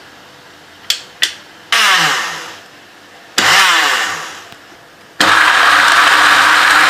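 Electric blender grinder pulsed three times, grinding fried onions, yogurt, almonds and cumin into a paste. The first two runs are short and wind down with a falling pitch as the motor spins down; the third runs longer and steady. Two light clicks come just before the first run.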